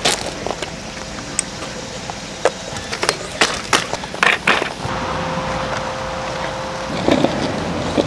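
Camping gear being handled and set down on gravel: scattered clacks and knocks of a folding metal stand and a wooden stand, with gravel crunching, heaviest near the end.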